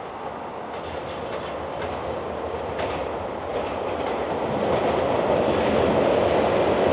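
JR East E721-series electric train approaching at low speed over turnouts: a steadily rising rumble of wheels on rail, with clicks as the wheels cross rail joints and points in the first few seconds.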